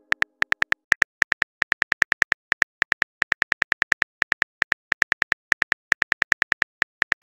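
Phone keyboard key-click sound effect as a text message is typed: a rapid run of short, identical ticks, about seven a second with brief pauses.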